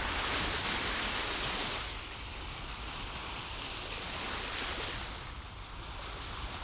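Steady rushing noise like surf, with no tune or voice, a little louder in the first two seconds.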